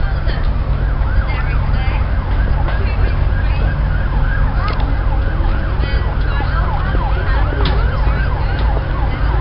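A siren rapidly rising and falling in pitch, about three sweeps a second, over a steady low rumble.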